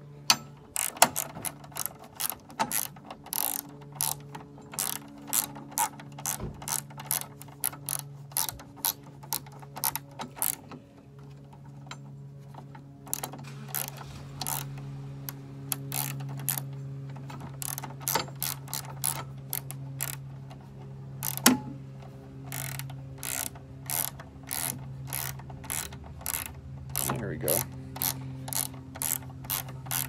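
Socket ratchet wrench clicking in short, repeated strokes, about two clicks a second, as bolts are tightened into the frame, with a pause a little over a third of the way through. A steady low hum runs underneath.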